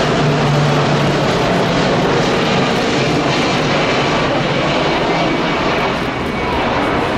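Boeing 747 freighter's four jet engines passing low on final approach, gear and flaps down: a loud, steady rush of jet and air noise with a low hum in the first second or so.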